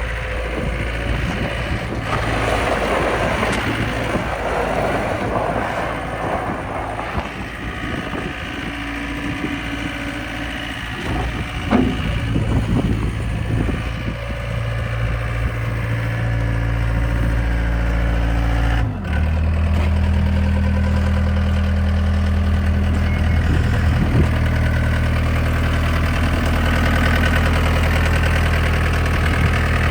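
2014 John Deere 320E skid steer's 66 hp Tier 4 diesel engine running steadily. About two-thirds of the way through, its note shifts suddenly and then holds steady again.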